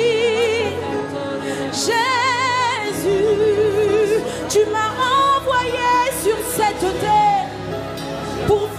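A woman singing a slow worship melody with wide vibrato into a microphone, over sustained accompaniment chords.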